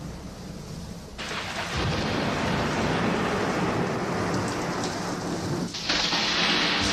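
Recorded thunderstorm effect of steady rain with rumbling thunder, from the intro of a 1971 soul record. The rain noise swells suddenly about a second in and again near the end.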